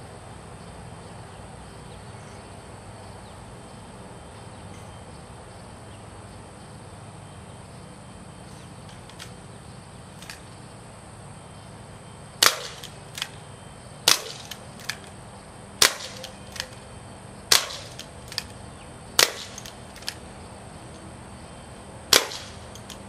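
UHC green-gas airsoft revolver firing six sharp cracks about 1.7 seconds apart, starting about halfway through, each followed by a fainter tick. Before the shots there is only a steady low background.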